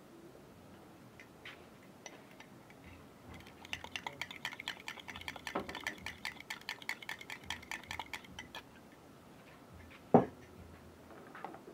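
A fork whisking beaten eggs in a bowl: about five seconds of quick, even clicking strokes, roughly seven a second, against the bowl. About ten seconds in comes a single sharp knock, the loudest sound.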